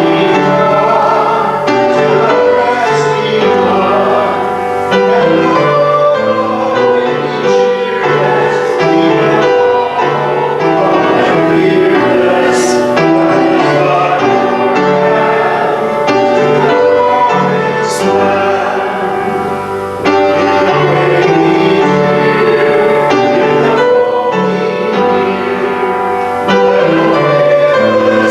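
Congregation singing a hymn with piano accompaniment.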